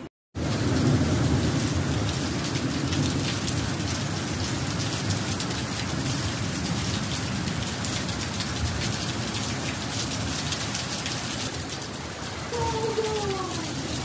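Torrential storm rain, a dense steady rush of water noise. Near the end a few short falling tones sound over it.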